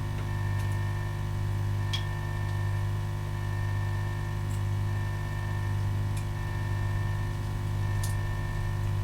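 Steady electrical hum with a few faint ticks.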